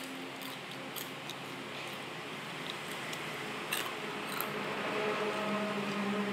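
Steady background hiss with a few light clicks, and a faint low hum that sets in about halfway through.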